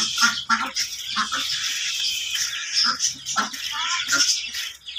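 A backyard flock of chickens, ducks and chicks calling together: a jumble of short clucks and calls over steady high cheeping.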